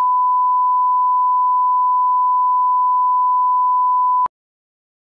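Steady 1 kHz reference tone, a single pure pitch of the kind that accompanies colour bars, cutting off suddenly about four seconds in.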